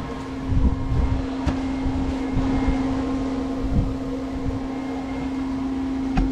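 Maple sap boiling hard in the flat pan of a wood-fired evaporator, under a steady fan-like mechanical hum, with a few dull low thumps.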